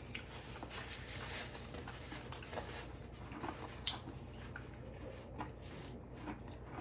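Faint chewing of Oreo cookies, with small scattered mouth clicks, over a low steady room hum.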